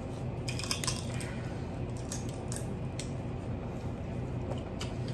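Cooked crab legs and shrimp shells being cracked and peeled by hand: scattered short crackles and snaps over a steady low hum.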